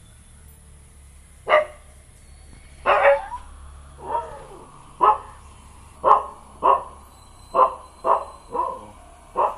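A dog barking repeatedly, about ten short barks starting about a second and a half in, roughly one every half-second to second.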